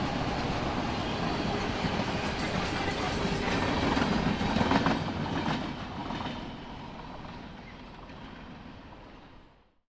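Norfolk Southern freight cars rolling past, their steel wheels clacking over the rail joints. The sound is loudest about four to five seconds in, then dies away as the end of the train passes. It cuts off to silence just before the end.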